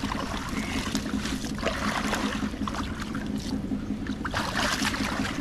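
Shallow water sloshing and splashing as men wade and work a fishing net, hands groping through weedy paddy-field water, with many small splashes and drips. A steady low hum runs underneath.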